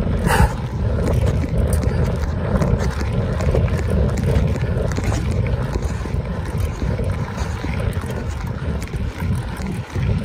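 Wind buffeting a mountain biker's camera microphone while riding: a steady low rumble, with one brief higher-pitched sound just after the start.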